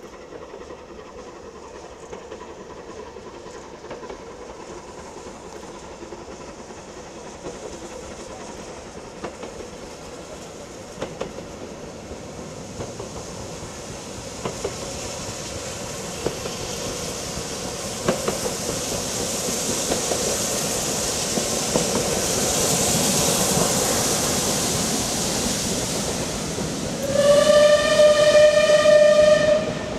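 Steam train hauled by Bulleid West Country class locomotive 34046 Braunton approaching and passing below, its noise building over about ten seconds with a few sharp clicks from the wheels. Near the end a steam whistle sounds for about three seconds, one steady note that edges slightly up in pitch.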